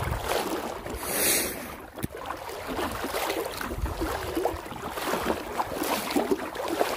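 Shallow sea water splashing and lapping right at the microphone as the camera moves just above the surface, with many small drip-like plops. A brief rush of hiss about a second in.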